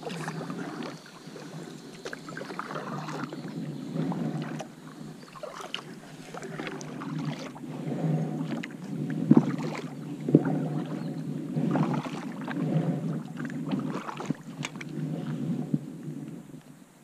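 Kayak paddle strokes in an inflatable kayak: the blades dip and splash, and the water swishes, swelling and fading every second or two. There are a couple of sharp knocks near the middle. It is heard close through an action camera worn on the paddler's life vest.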